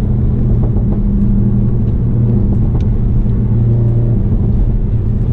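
Cabin sound of a Mk7 Volkswagen GTI with an APR Stage 2 tune, intake and downpipe: its turbocharged four-cylinder engine drones at a steady pitch in third gear, over tyre and road noise from a wet, broken road.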